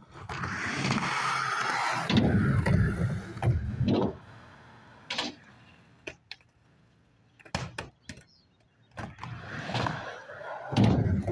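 Skateboard dropping in and rolling down a sheet-metal ramp, its wheels rumbling over the metal and then the pavement, loudest about two to four seconds in. A few sharp board clacks follow in the middle, and the rolling starts up again near the end.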